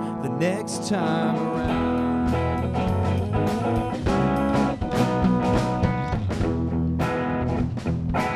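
A rock band playing live: electric guitars, bass guitar and a drum kit. After a sparse opening the bass and drums come in fully about a second and a half in, with steady cymbal and drum hits.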